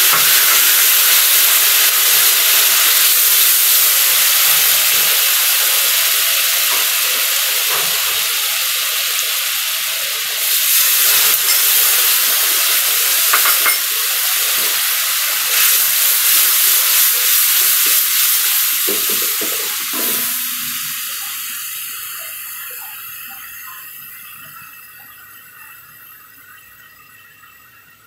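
Lemon juice mixed with turmeric sizzling and hissing in hot tempering oil in a kadai, with a few scrapes and knocks of a wooden spatula stirring it in the middle. The sizzle dies away steadily over the last several seconds.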